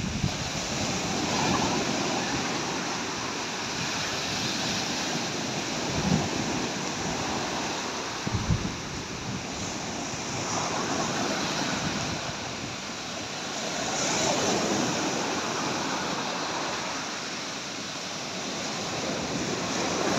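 Rough, wind-driven surf breaking and washing up a sandy beach, the rush of water swelling and fading every few seconds. Wind buffets the microphone, with a couple of low thumps in the middle.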